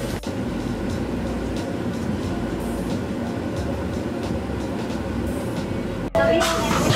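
Steady low hum and hiss inside the cab of the Ueno suspended monorail car standing at a station in rain. About six seconds in it breaks off sharply and gives way to louder, busier sound with a short steady tone.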